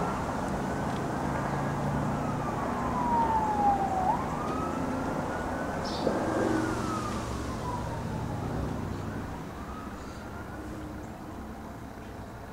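An emergency siren wailing in slow rises and falls over a steady outdoor background hiss, growing fainter in the last few seconds. There is one short click about six seconds in.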